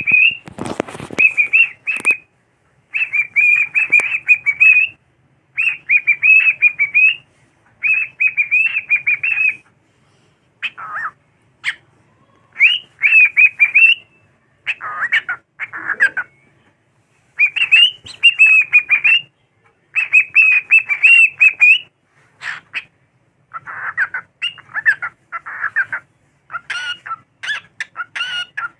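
Cockatiel singing: repeated warbling, whistled phrases of one to two seconds with short pauses between them. There is a brief rustling burst near the start.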